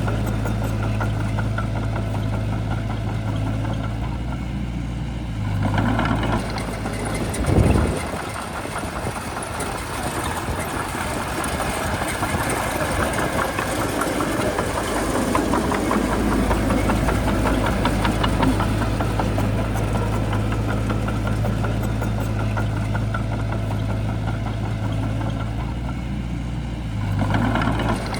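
Heavy diesel engine of a Shantui bulldozer running with a clattering diesel knock. A single heavy clunk comes about seven seconds in, and the machine gets louder and rougher through the middle before settling back to a steady run.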